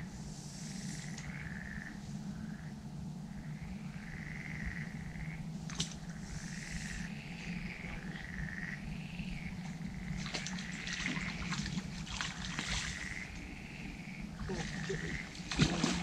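Frogs croaking in a repeated series of short calls, each about a second long, over a low steady hum. A few splashes and knocks come near the end as a hooked tench is netted at the water's edge.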